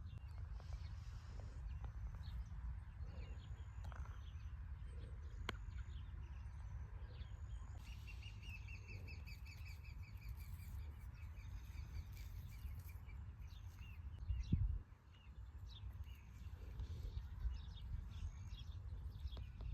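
Small birds chirping, with a fast trill about eight seconds in, over a steady low rumble. A brief thump comes about fourteen and a half seconds in.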